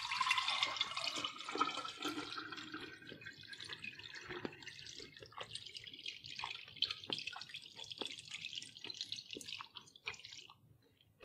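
Hot melted beef tallow poured from a stainless steel pot through a fine mesh strainer into a glass mason jar: a steady trickling stream, fullest at first, then thinning to a broken trickle with separate drips before it stops near the end.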